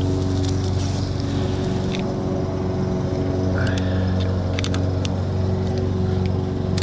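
Gas engine of a truck-mounted pressure-washer rig running steadily, with a few sharp clicks scattered through.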